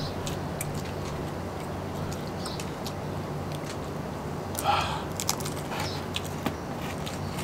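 People chewing and biting pizza, with faint clicking mouth sounds over a steady low hum. A short higher-pitched sound stands out about five seconds in.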